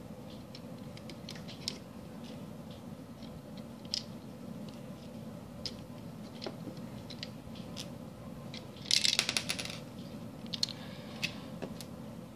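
Plastic Lego bricks and Technic parts clicking and rattling as a home-built Lego revolver is handled and loaded with a Technic axle. About nine seconds in comes a quick, loud clatter of many plastic clicks, followed by a few more single clicks.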